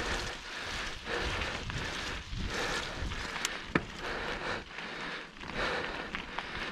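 Mountain bike riding down a dirt trail: wind rushing over the microphone in uneven surges, tyres rolling over dirt, and a couple of sharp clicks from the bike about three and a half seconds in.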